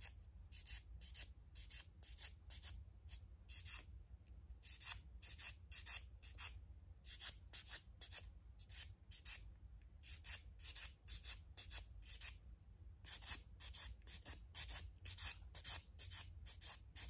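Rasping strokes of a sponge nail buffer worked back and forth over fingernails, about two to three strokes a second, in runs with short pauses. The soft side is roughening the surface of the natural nails after old gel was removed.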